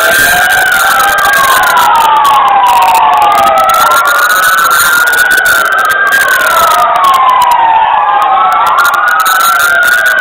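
Emergency-vehicle sirens wailing loudly: two slow rising-and-falling wails, each sweep taking a few seconds, overlapping out of step with each other.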